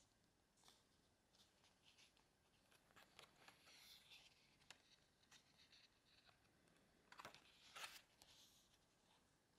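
Faint rustling of paper pages as a photo book is handled and a page is turned, with the loudest rustles a little over seven seconds in.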